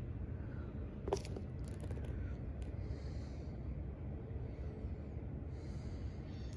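Faint handling noise of a large hardcover book being held and turned in the hand, over a steady low room rumble, with one sharp click about a second in.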